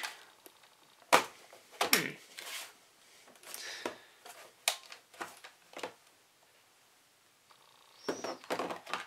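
Sharp plastic clicks and knocks at irregular intervals as a laptop battery pack is pushed and worked into its bay in an ASUS G74S gaming laptop, still not seated.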